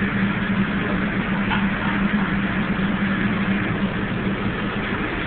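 Steady machine hum of kitchen equipment: a constant low drone under an even hiss.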